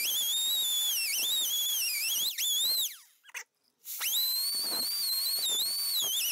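Air die grinder whining at high speed as it scours heavy, scaly rust inside a steel winch motor housing, its pitch dipping and wavering as the tool bears on the metal. It stops about three seconds in and starts again a second later.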